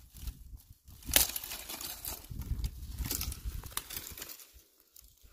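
Dry sticks and brush crackling and crunching as dry firewood is gathered and broken by hand, with one sharp snap about a second in.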